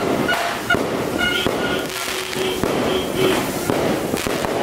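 Pinwheel firework spinning on a gate, giving a continuous sputtering hiss as it throws out sparks, with a few brief high whistling tones over it.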